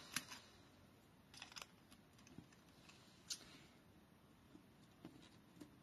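Near silence with a few faint, short clicks and taps as a handheld craft pick-up tool is handled and touched to a sheet of adhesive gems; the clearest clicks come just after the start and about three seconds in.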